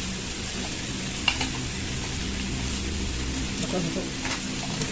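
Samgyupsal pork sizzling on a grill tray, a steady hiss, with a few sharp clicks of utensils against dishes.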